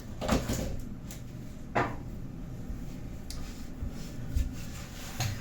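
Kitchen cupboard or drawer being opened and shut: two knocks about a second and a half apart, then a few lighter clicks.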